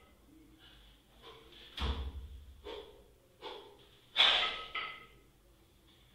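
Hard, rhythmic breathing through a set of double-kettlebell jerks, with sharp exhales on each rep. There is a dull thud about two seconds in, and a loud burst of breath with a knock just after four seconds as the bells come back down.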